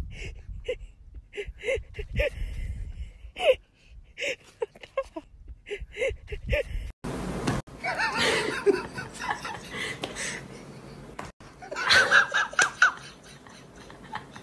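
Person laughing in short repeated bursts; about seven seconds in the sound changes abruptly to louder, denser laughter and voices.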